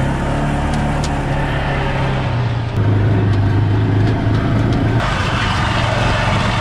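Side-by-side utility vehicle's engine running steadily while it is driven over rough ground, a low hum with the noise of the ride on top. The sound changes abruptly twice, about three and five seconds in.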